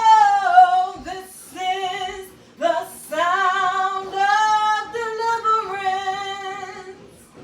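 A high female voice singing unaccompanied: improvised worship singing in a string of long held, gently wavering notes that stops shortly before the end.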